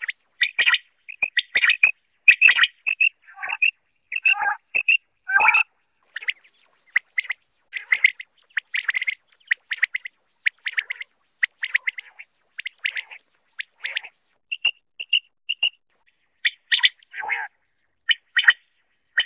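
Common quail calling in a quick, uneven run of short chirps, with a few lower, falling notes and, later, a phrase of three short even notes.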